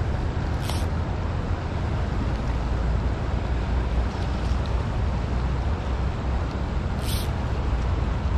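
Wind buffeting the microphone, a fluctuating low rumble, over the steady rush of flowing river water, with two brief sharp ticks, one about a second in and one near the end.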